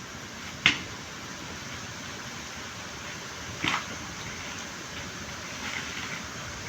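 Two sharp knocks about three seconds apart, the first louder, over a steady low hiss.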